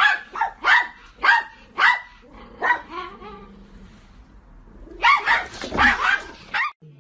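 A dog barking: about five sharp barks roughly half a second apart, a short pause, then a quick run of barks near the end.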